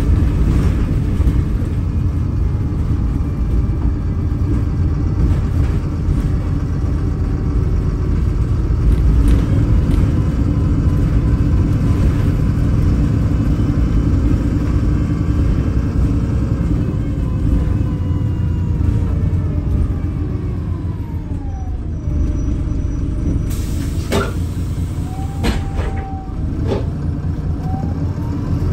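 VDL SB200 bus's diesel engine and drivetrain heard from inside the passenger cabin, running steadily under way. About two-thirds through, a transmission whine falls in pitch as the bus slows, then a few sharp clicks and knocks follow while it is slow. The engine picks up again right at the end.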